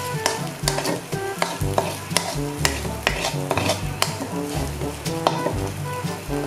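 Metal spoon stirring and scraping sardine sisig around a coated wok as it fries and sizzles, with irregular sharp scrapes and taps several times a second.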